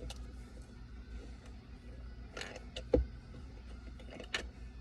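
A few light clicks and knocks of a Phillips screwdriver and a plastic center console lid latch being worked loose and handled, the loudest a single knock about three seconds in.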